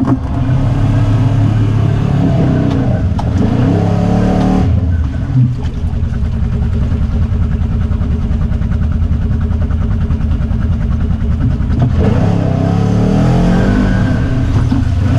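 ATV engine revving up and down as it churns through a deep mud hole, settling into steadier running in the middle before revving again near the end.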